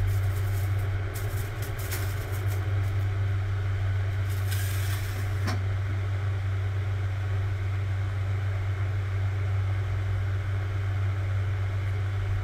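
Toast slices handled on the wire rack of a gas range's grill drawer with light clicks, then the drawer sliding shut and closing with a clunk about five and a half seconds in. A steady low hum runs underneath throughout.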